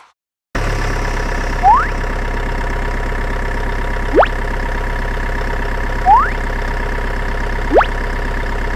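Heavy machine engine idling steadily, added as a sound effect, starting after a half-second gap. Four short whistle-like pitch glides are laid over it: two quick rising ones and two longer falling ones.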